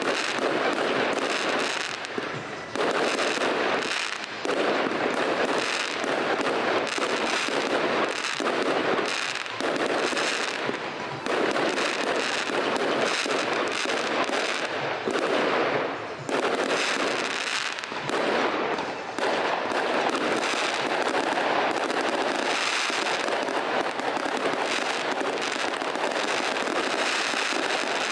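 Aerial fireworks display: shells launched and bursting overhead one after another in an almost unbroken run of bangs, with only a few brief lulls.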